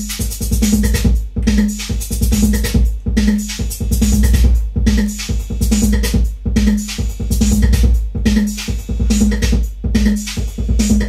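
Detroit techno played live on a Roland TR-808 drum machine and a Roland Jupiter-6 synthesizer: a steady deep bass and kick under dense hi-hats, with a short synth note repeating about every two-thirds of a second. The upper layers drop out briefly about every second and a half.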